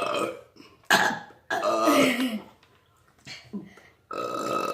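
People burping on purpose: several burps in a row. The longest, about a second and a half in, drops in pitch as it goes.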